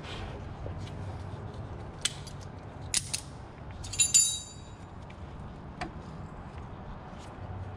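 Metal sockets and hand tools clinking as they are picked up from a socket set on a concrete floor: several sharp clicks, the loudest a ringing metallic clink about four seconds in, over a steady low hum.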